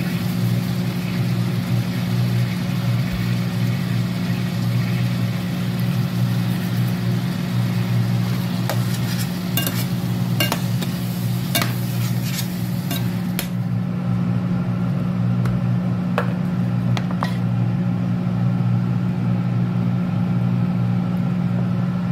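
Lamb kidney pieces sizzling in a stainless steel frying pan, with a metal slotted spoon scraping and clinking against the pan several times around the middle, over a steady low hum. The sizzle's hiss thins out a little past halfway.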